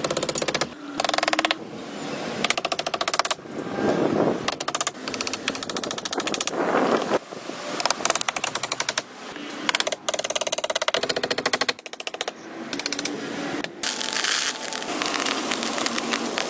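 A fast, rattling run of clicks and knocks, many a second, in stretches that stop and start every second or so, from hand-tool work on a log hut. A few fuller, duller wooden knocks stand out.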